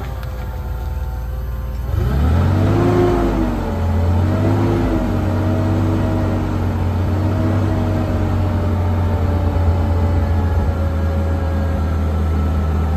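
Caterpillar LP-gas (propane) forklift engine revving up about two seconds in and holding high revs with small dips, driving the hydraulics as the mast lifts the forks.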